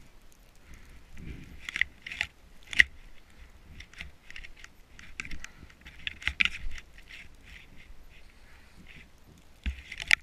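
Snowboard riding through deep powder snow: a run of irregular crunches and scrapes of the board against the snow, the sharpest one about three seconds in, over a low rumble.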